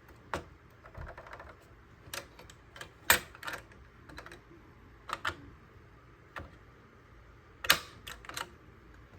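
Irregular sharp clicks and clacks of a desktop CPU being set back into its motherboard socket and the socket's metal retention hardware being closed, with the loudest snaps about three seconds in and again near the end.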